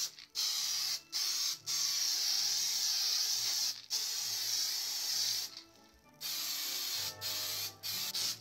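Aerosol can of Fast Tack 92 spray adhesive hissing as it sprays: one long burst of several seconds, another shorter one, a brief pause, then a run of short quick bursts toward the end.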